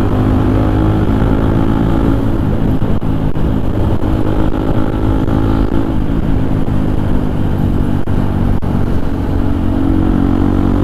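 Motorcycle engine running under way at road speed, its exhaust note from a stock silencer that has been cut down. The pitch rises and falls a little with the throttle.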